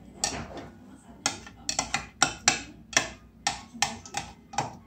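Wooden chopstick stirring in a clear plastic measuring cup, knocking against the cup's sides in about a dozen sharp, irregular taps.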